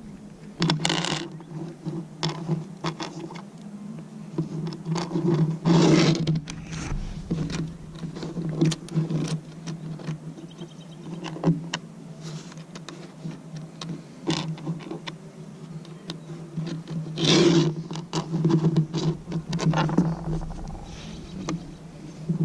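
Irregular metal clinks, knocks and scrapes of nuts, bolts and washers being handled and fitted to a trolling motor mount, with a couple of longer rustling scrapes, over a steady low hum.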